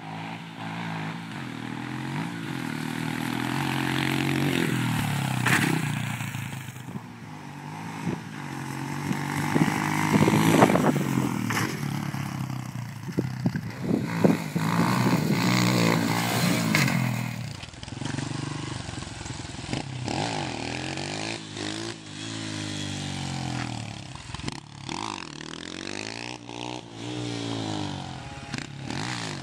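Honda CRF150F dirt bike's four-stroke single-cylinder engine revving up and down as it is ridden, its pitch rising and falling again and again, with a few sharp clacks along the way.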